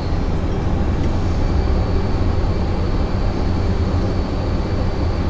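Steady machine-shop background drone: a low rumble with a thin high-pitched whine, from running shop machinery.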